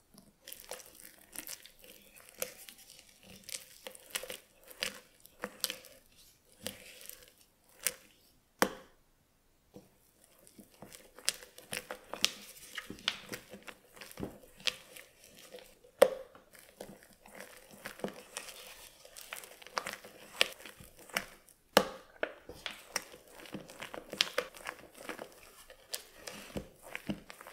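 Silicone spatula stirring and folding thick egg batter in a stainless steel bowl, working whipped egg whites into the yolk mixture: irregular wet squelches with scrapes and ticks against the bowl's side. There is a short silence about nine seconds in.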